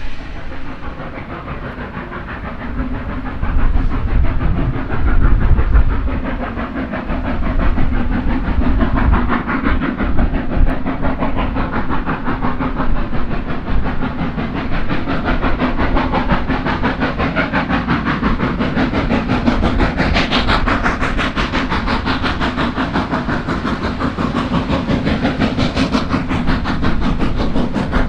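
Steam-hauled train running on the line, with a fast, steady clatter of wheels and rail joints and a hiss of steam. It grows louder about three seconds in, then carries on steadily.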